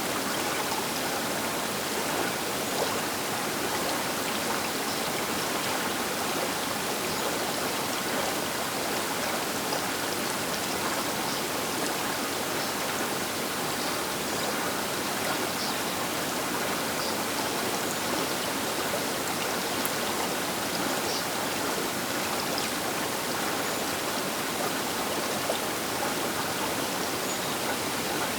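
A fast river flowing: a steady, even rush of water over the bank, with small splashes scattered through it.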